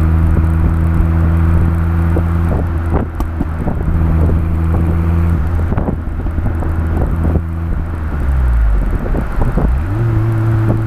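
Honda City Turbo I's turbocharged four-cylinder exhaust, heard from behind the car while driving: it runs at a steady engine speed, drops off about eight seconds in, then picks up revs again and holds near the end. Wind buffets the microphone with short knocks.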